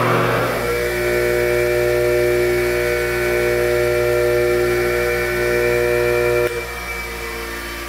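Bench grinder motor and grinding wheel running at speed with a steady hum, on a test spin that measures how much imbalance is left in the wheel. About six and a half seconds in, it is switched off and the hum drops away as the wheel coasts.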